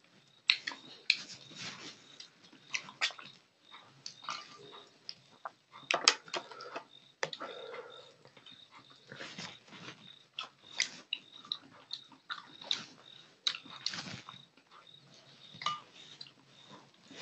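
Close-miked mouth sounds of a person eating fish curry by hand: wet chewing and lip smacking, with many short, irregular smacks and clicks.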